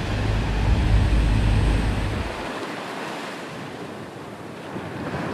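Ocean surf breaking on a reef below cliffs, heard as a steady rushing noise, with wind buffeting the microphone. A heavy low rumble of wind drops away about two and a half seconds in.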